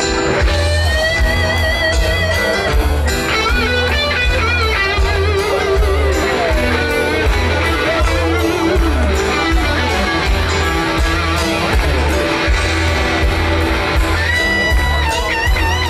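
Live rock band playing: an electric guitar holds long, wavering lead notes over bass and drums, heard from the crowd in front of the stage.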